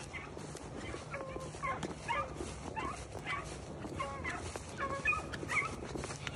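A pack of rabbit-hunting beagles giving tongue on a rabbit's trail: a steady run of short, overlapping cries from several dogs.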